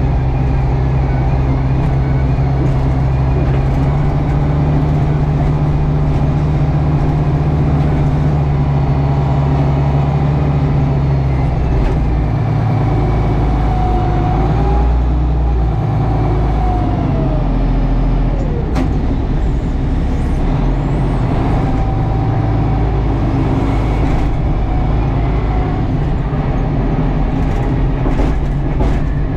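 Tractor engine running steadily under load, its pitch shifting and dipping about halfway through.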